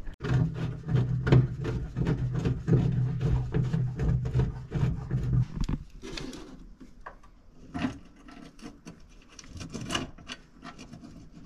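Tool work on the seat's factory mounting bolts: a rough rasping with rapid clicking for about the first five and a half seconds, then stopping, followed by a few scattered metal clicks and knocks as the hardware is handled.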